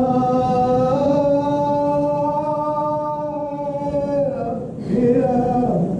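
A man singing one long held note that steps up slightly in pitch about a second in and is held until about four seconds in, followed by a short break and a new note near the end.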